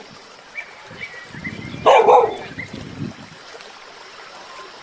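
A dog barks once, a short sharp bark about two seconds in, with faint squeaky yips around it.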